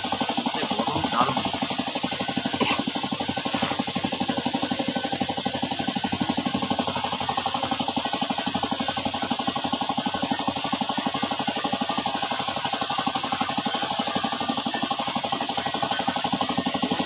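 An engine running steadily with a fast, even knocking beat.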